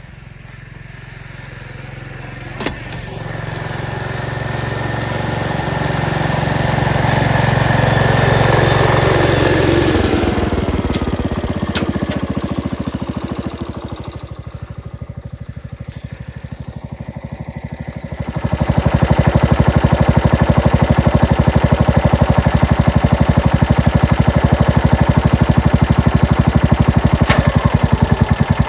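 Gravely walk-behind tractor engine running a snowblower attachment. It grows louder over the first several seconds, drops back with a falling whine about ten seconds in, and is quieter for a few seconds. Then, from about eighteen seconds in, it runs loud and steady, close by, with an even rapid beat.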